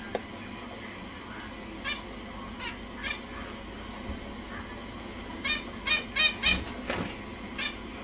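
Zebra finches calling: short honking calls, a few scattered ones and then a quick run of several between about five and a half and seven seconds in.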